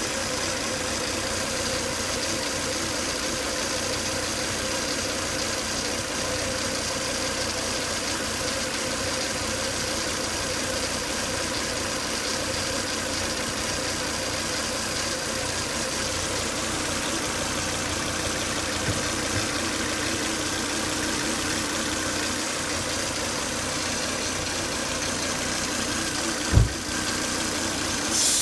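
Volvo S80 2.5T's turbocharged five-cylinder engine idling steadily with a whine. The whine comes with high crankcase vacuum from a faulty crankcase breather (PCV) box. A single sharp thump sounds near the end.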